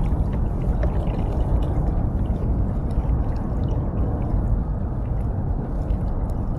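Water sloshing and gurgling against a kayak's hull, a steady wash of noise with a few faint ticks.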